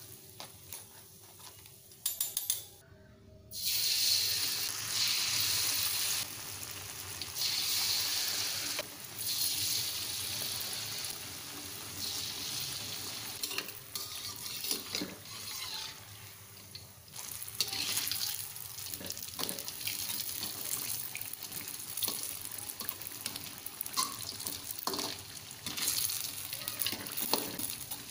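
Flour-battered tempeh slices deep-frying in hot oil in a wok, a steady crackling sizzle that cuts out briefly about three seconds in. A few light clicks of the wire strainer come through the sizzle later on.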